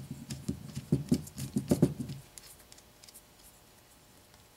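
Light clicks, knocks and scrapes of small steel parts handled by hand as square-head clamping bolts are threaded into the clamping plate of a micrometer carriage stop, lasting about two seconds.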